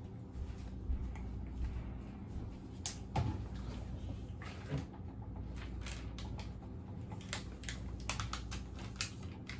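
Spoon clicking and scraping against a bowl at irregular moments as melting butterscotch morsels are stirred.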